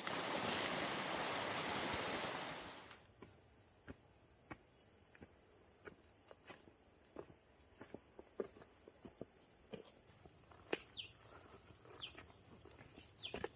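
A rushing noise cuts off about three seconds in. Behind it an insect keeps up a steady high trill, with scattered light clicks and a few short falling chirps near the end.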